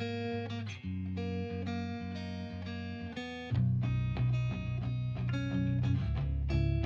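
Background music played on guitar: plucked notes over a steady low bass, with a fuller, louder bass part coming in about three and a half seconds in.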